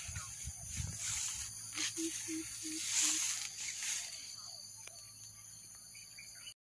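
Outdoor ambience in light drizzle: a steady high-pitched hiss and whine, with four short, evenly spaced low hoots about two seconds in.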